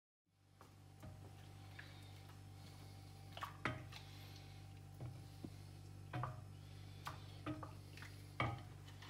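Irregular light knocks and clinks of a collapsible colander and stainless steel bowl being handled at a kitchen sink while sorting raspberries, over a steady low hum.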